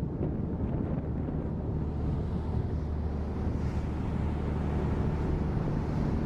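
Boat engine running steadily with a low hum, wind buffeting the microphone.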